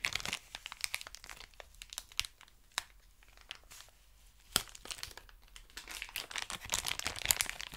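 Clear plastic wrapping crinkling and tearing as it is pulled off a straight razor. The crackles come in bunches, sparse in the middle and busiest near the end.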